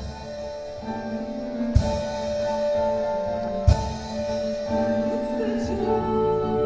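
Instrumental musical-theatre accompaniment playing sustained, held notes, with two sharp knocks, one nearly two seconds in and one nearly four seconds in.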